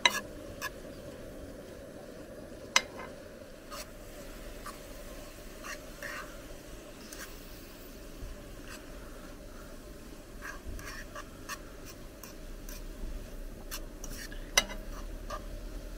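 A utensil stirring rice with peas and sweetcorn in a pan on a camp gas stove: scattered light taps and scrapes against the pan, with a few sharper knocks, over a steady low hiss.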